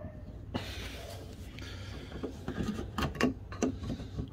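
Plastic trim-removal tool scraping and prying in the gap between a van's plastic body panel and its metal trim strip, a scratchy rubbing followed by a few small clicks and knocks as the pieces are worked apart.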